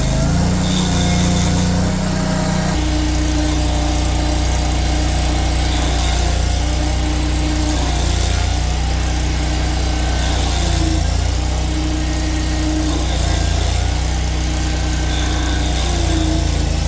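Tracked stump grinder's gas engine running steadily at working speed for stump grinding, its note shifting lower about three seconds in.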